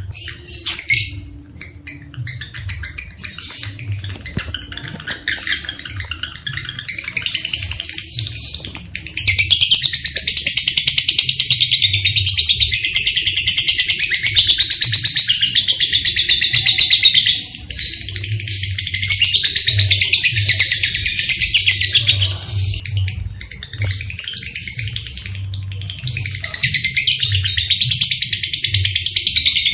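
Lovebird chattering in long, fast, high-pitched trills. The chatter is fainter and broken at first, then loud and almost unbroken from about a third of the way in, with a few short pauses.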